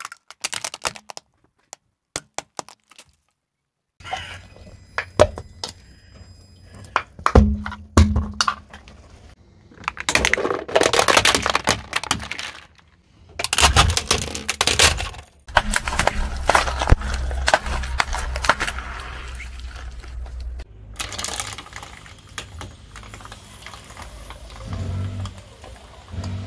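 Plastic objects cracking and crunching under a slowly rolling car tyre: a string of sharp cracks and snaps with short gaps, and thicker crunching about ten to fifteen seconds in. A low steady hum runs under the crackling for several seconds after that. Near the start there are about two seconds of dead silence.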